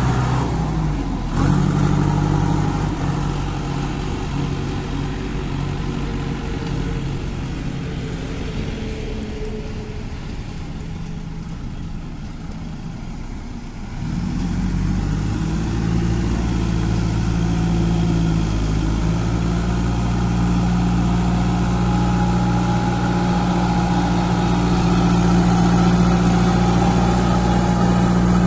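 Kirloskar diesel engine of a JCB 2DX backhoe loader running. It eases down over the first half, picks up abruptly about halfway through, then holds a steady note.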